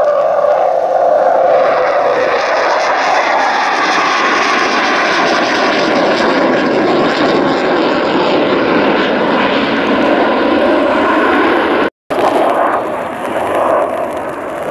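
Saab J35 Draken jet fighter's single turbojet engine roaring steadily during a display flypast, with faint tones that slide slowly in pitch as the jet moves. The sound cuts out briefly about twelve seconds in, then the roar continues a little quieter.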